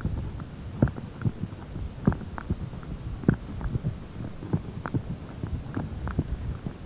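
Footsteps on concrete tarmac: soft, irregular taps about twice a second over a steady low rumble.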